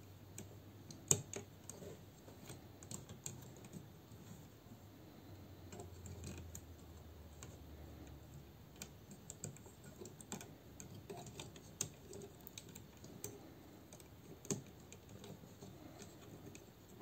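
Hard plastic parts of a transforming combiner robot toy clicking and tapping as they are handled and fitted into place: scattered small clicks, the sharpest about a second in.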